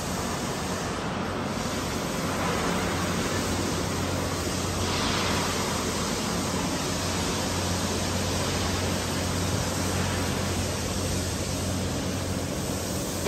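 Steady workshop machinery noise: an even hiss with a low hum underneath.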